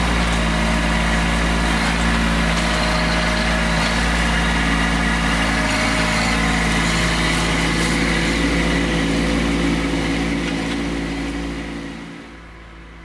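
Kubota B2601 compact tractor's three-cylinder diesel engine running steadily while its loader grapple works a brush pile; the sound drops away about twelve seconds in.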